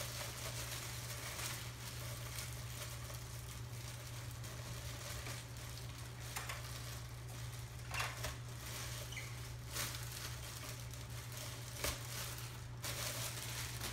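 Plastic bag wrapping rustling and crinkling as it is handled and worked off a boxed device, with a few sharper crackles near the middle and toward the end, over a steady low hum.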